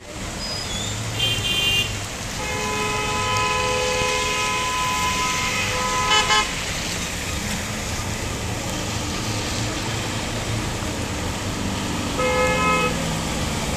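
Heavy rain and floodwater make a steady hiss, over which vehicle horns sound: a short honk about a second in, a long held honk from about two to six seconds, and another short honk near the end.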